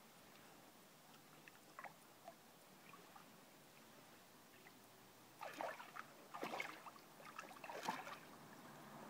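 Water sloshing and splashing in a small plastic dog paddling pool as two dogs wade and move about in it. The first half is quiet with faint small splashes, then several louder bursts of splashing come from about halfway through.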